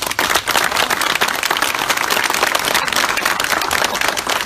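Crowd breaking into loud applause, dense clapping starting suddenly at the outset.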